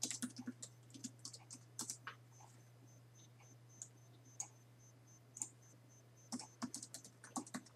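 Computer keyboard being typed on: faint short runs of key clicks in the first two seconds and again near the end, over a low steady hum.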